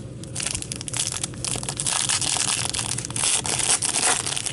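Crinkling and crackling of a foil trading-card pack wrapper being handled and torn open, starting about half a second in and going on irregularly.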